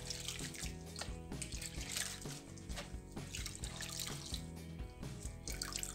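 Water sloshing and dripping as a bundle of hair extensions is squeezed and worked by hand in a plastic basin of shampoo water, under background music.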